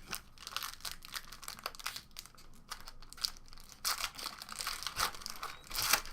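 Crinkling and tearing of a trading-card pack wrapper as it is opened and handled, in a run of crackles with louder bursts about four seconds in and near the end.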